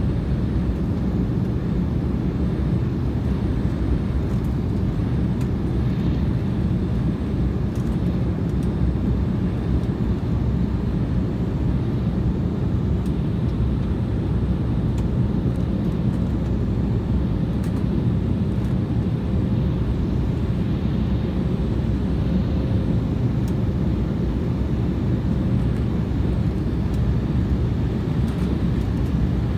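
Steady low rumble of an airliner's engines and rushing air inside the passenger cabin, with a faint steady hum above it.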